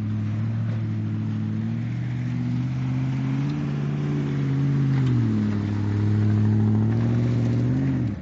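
Off-road 4x4's engine running at fairly steady revs under load as it pushes through a muddy trench. The pitch lifts slightly in the middle, dips briefly about five seconds in, then picks up again, and the sound stops abruptly at the end.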